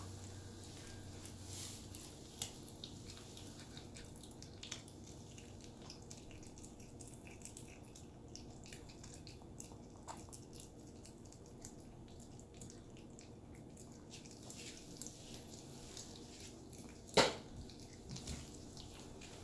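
Yorkshire terrier chewing raw bone-in chicken neck: irregular small wet clicks and crunches of bone, with one louder crunch near the end.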